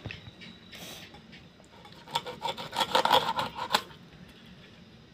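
Pieces of rohu fish scraped quickly against the steel blade of a floor-mounted boti, a run of rasping strokes about two seconds in that lasts under two seconds, after a single short scrape near the start.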